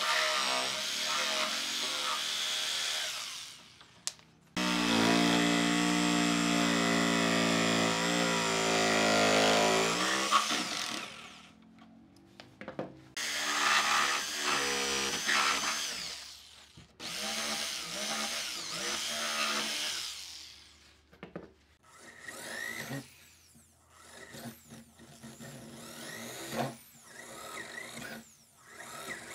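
Handheld electric power tool working wood, running in several bursts of a few seconds each. The longest and loudest burst sags in pitch just before it stops. Near the end come short stop-start bursts with scraping.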